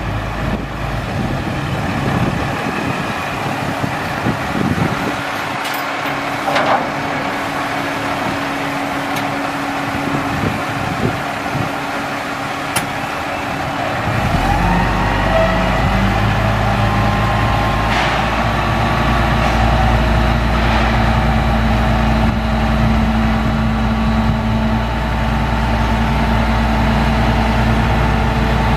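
International DT466 diesel engine idling, then about halfway through it gets louder and steadier, with a steady whine joining it as the hydraulic hoist raises the dump bed. A few sharp clicks are heard along the way.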